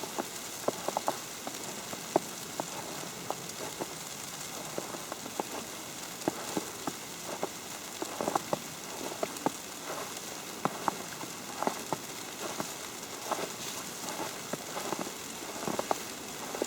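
Snow falling on an umbrella: many light, irregular ticks over a steady hiss.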